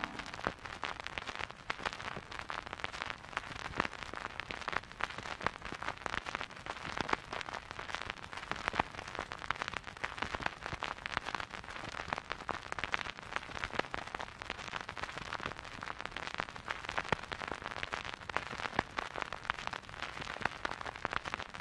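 Vinyl record surface noise from a record player: a steady crackle of many small pops and ticks, with a few louder pops scattered through it.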